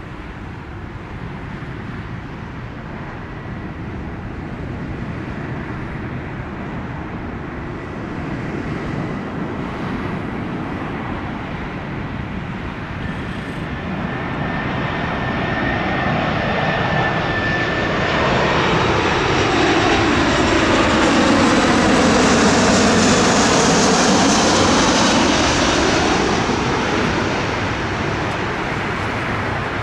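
Jet airliner passing close by, its engines giving a steady high whine at first. The engine noise swells to its loudest about three-quarters of the way through, then eases and cuts off at the end.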